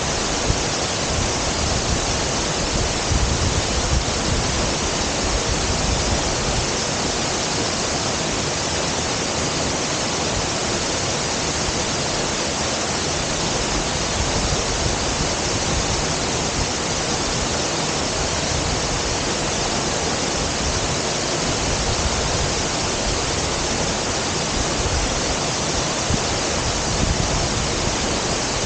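Waterfall crashing into its pool: a loud, steady roar of falling water with no letup.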